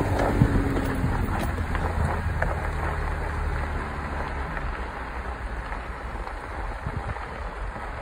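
Jeep Wrangler driving slowly along a rough dirt trail: a steady low engine and road rumble, with wind noise on the microphone and the engine note easing off about halfway through.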